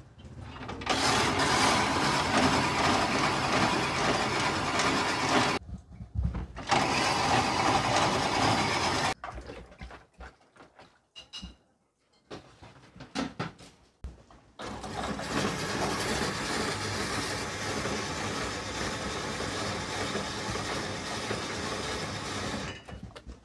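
An old cast-iron ice shaving machine spins a block of ice against its blade and shaves it into a bowl, with a steady grinding whirr. It runs loudly for about eight seconds with a brief stop, pauses with a few clicks and knocks, then runs again more quietly and steadily until near the end.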